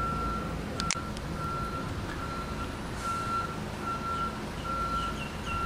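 An electronic beep on one steady tone, repeating roughly once a second over a low engine rumble.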